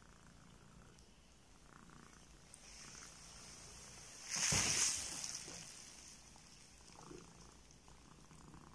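Domestic cat purring softly, with a brief rustle about halfway through.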